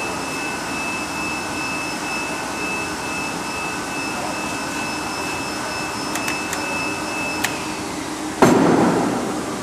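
A Datien CT-300E guillotine paper cutter hums steadily with a faint high whine. A few light clicks come about six to seven and a half seconds in. About eight and a half seconds in there is a sudden loud thump that fades over about a second.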